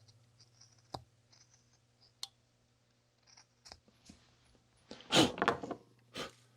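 Hand carving gouge cutting basswood: a few small clicks and ticks of the tool on the wood, then a louder scraping cut about five seconds in and a shorter one just after six seconds.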